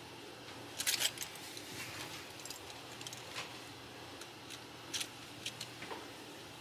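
Quiet room tone with a few soft clicks and light rattles of small objects being handled, the clearest about a second in and again near five seconds.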